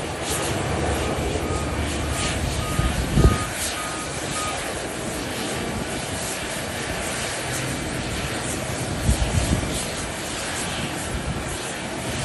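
Boeing 737 jet airliner's engines at taxi power, a steady whooshing run. A faint repeating beep sounds through the first few seconds, and there are low thumps about 3 s and 9 s in.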